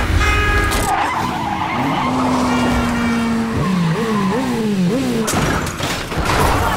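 Car engine revving hard, its pitch climbing and dropping back several times in quick succession about halfway through, over tyres squealing and skidding.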